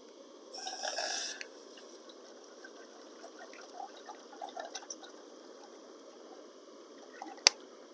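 Water poured from a plastic gallon jug into a metal cooking pot. A louder splashing gush comes about half a second in, then a thin trickle with scattered small splashes. A single sharp click comes near the end.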